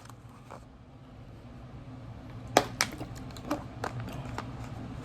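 A few sharp, irregular clicks and taps, starting about halfway through, over a low steady hum.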